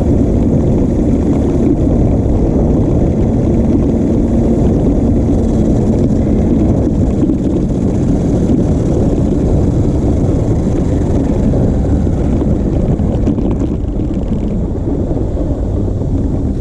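New Bright Grave Digger RC monster truck driving, picked up by a camera taped to its roof: a steady electric-motor hum over a dense low rumble, the hum fading about halfway through, with a few short knocks near the end.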